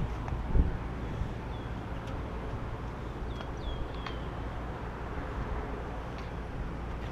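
Outdoor wind rumbling on the microphone, with a few faint short bird chirps a few seconds in.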